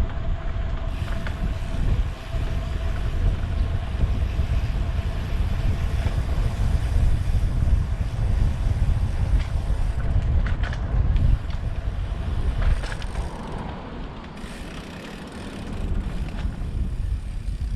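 Wind buffeting the microphone of a camera riding along on a moving road bike, a heavy, gusty rumble mixed with road and tyre noise. It eases a little about two-thirds of the way through and again at the end.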